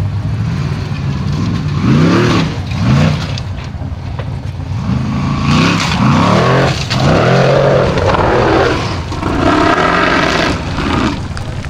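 Formula Offroad buggy's engine revving hard in repeated rising and falling surges as it claws up a steep gravel hill.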